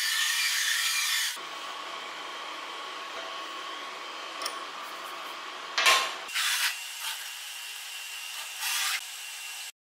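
CNC engraving machine during a tool change: wrenches on the spindle's collet nut, with a sharp metallic knock about six seconds in and a few shorter scrapes after it, over a steady machine hiss that is louder for the first second.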